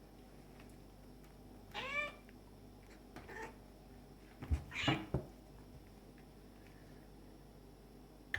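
Cats play fighting: a cat meows in a drawn-out call about two seconds in, gives a fainter short call, then a louder call amid a few quick thuds around the middle.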